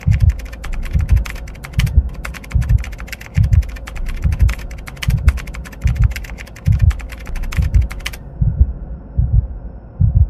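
Keyboard-typing sound effect, a rapid run of clicks that stops about eight seconds in, over a low thump repeating about twice a second.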